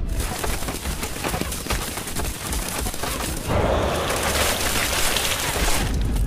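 Film sound effects of a volley of arrows raining onto straw-covered wooden boats: a dense, rapid patter of hits, merging into a continuous rush from about three and a half seconds in.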